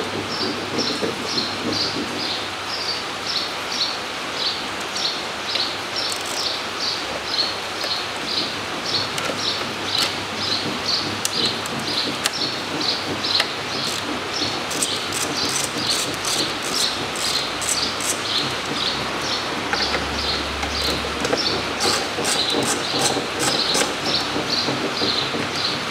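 An insect chirps steadily, about two to three short chirps a second. Over it come bursts of quick sharp clicks from a ratchet loosening the bolts of the engine's top cover, mostly in the second half.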